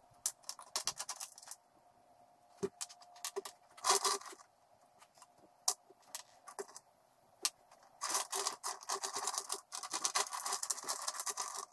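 Loose steel bolts, nuts and washers clinking, jingling and scraping against each other and the plywood benchtop as a hand sifts through a pile of hardware. The clinking is thick for the first second and a half, again around four seconds in and from about eight seconds on, with scattered single clicks between.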